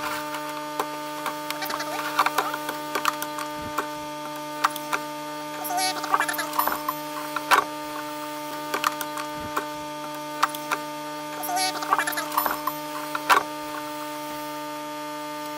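Steady electrical hum, with scattered light clicks and knocks and a few brief rustles from handling an opened CRT television's chassis and wiring.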